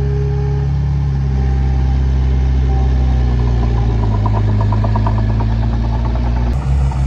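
Heavy diesel engine of earthmoving machinery running steadily, its pitch dropping about four seconds in. Near the end the sound changes abruptly to a pulsing engine note.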